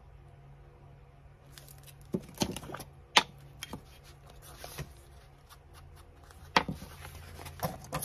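Paper and crafting supplies being handled: several sharp taps and rustles, the loudest about three seconds in and another near six and a half seconds, over a steady low hum.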